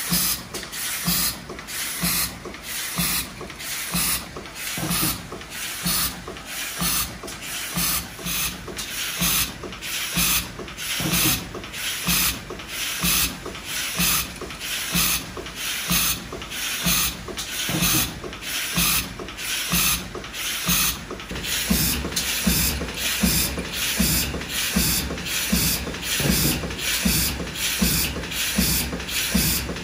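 GD33/12X automatic indexing machine for assembling child-safe caps, running its cycle: a quick, even rhythm of mechanical strokes, somewhat under two a second, over a steady rubbing noise.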